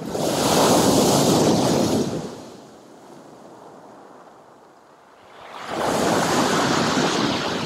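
Sea surf on a pebble shore: two waves break and wash up, about five seconds apart, each surge lasting two to three seconds, with a softer wash between them.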